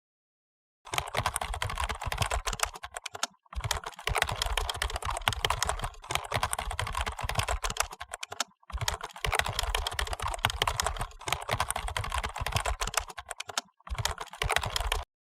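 Rapid computer keyboard typing in four quick runs with short breaks between them.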